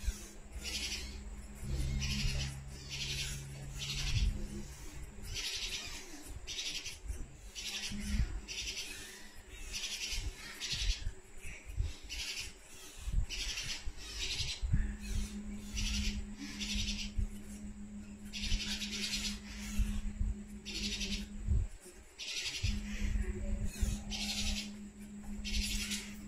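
Day-old Alexandrine parakeet chick giving short, hissy begging calls over and over, about one a second, while it is spoon-fed.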